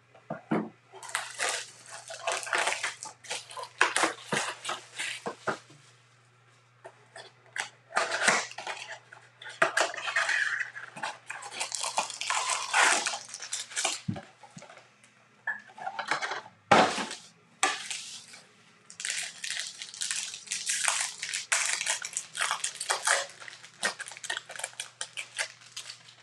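Baseball card packaging being opened by hand: a Bowman blaster box's cardboard and its pack wrappers crinkling and tearing in repeated bursts, with a sharp snap about two-thirds of the way through.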